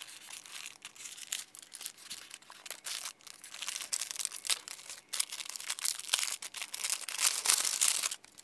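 Kraft paper bag crinkling and rustling in dense, irregular crackles as hands untie its twine and open it, growing louder near the end as the item inside is pulled out.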